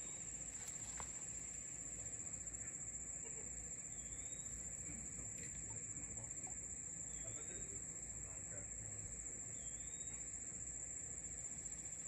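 Steady high-pitched chorus of insects, a single unbroken trill. A faint short rising chirp repeats about every three seconds.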